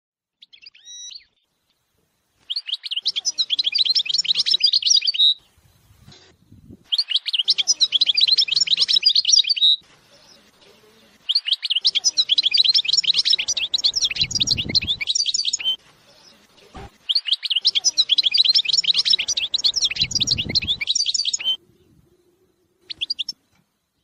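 Caged finch singing in four long phrases of rapid, high chirps and trills with short pauses between, and a brief burst near the end. A low rumble sits under the third and fourth phrases.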